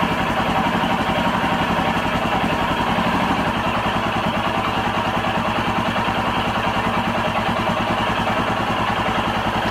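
Royal Enfield Himalayan's air-cooled 411 cc single-cylinder engine idling steadily at about 1100 RPM, in an even pulsing beat. Its idle speed has been raised by turning up the idle screw.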